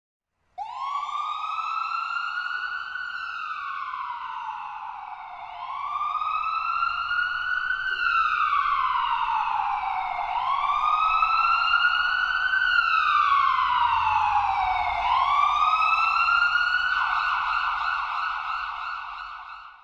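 Emergency-vehicle siren on a wail setting, its pitch rising and falling slowly through about four long sweeps of roughly five seconds each.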